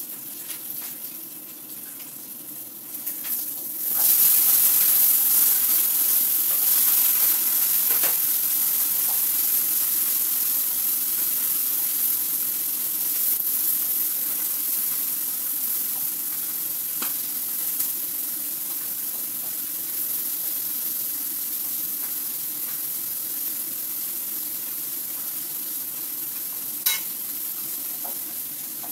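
Food frying in oil in a pan on a stove. A loud, steady sizzle starts suddenly about four seconds in and slowly eases off, with a sharp click near the end.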